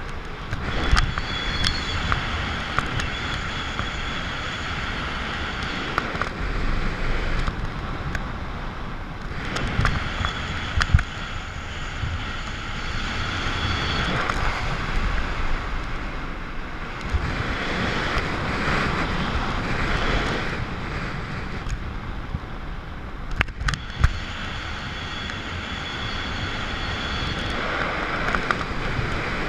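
Wind rushing over a wrist-mounted camera's microphone during a skydive descent, swelling and easing in gusts, with a few short knocks and a faint high whistle that comes and goes.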